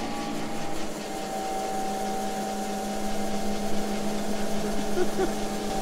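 Electric motor of a two-post car lift running with a steady hum as it raises the van.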